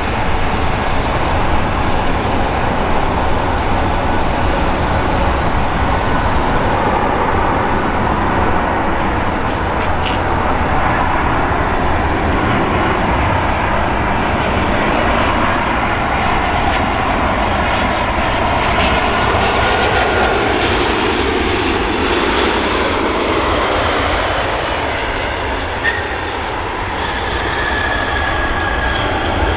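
Boeing 737-800 twin-jet landing, its engines giving a steady loud jet rumble and whine. The noise dips briefly near the end, then rises again while the jet rolls out on the runway.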